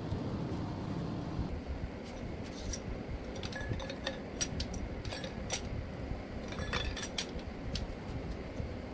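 Metal pushrods for an air-cooled VW Type 1 engine clinking against each other and the cylinder head as they are handled and fitted. Irregular light metallic clinks and ticks, a few ringing briefly, start a couple of seconds in, over a steady low background noise.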